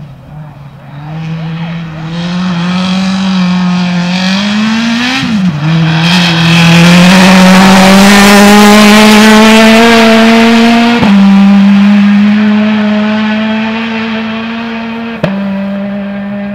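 Small hatchback rally car driving flat out on a snowy gravel stage: the engine note climbs, drops once at a gear change about five seconds in, and is loudest as the car passes close by. It then fades as the car pulls away, with two sharp cracks along the way.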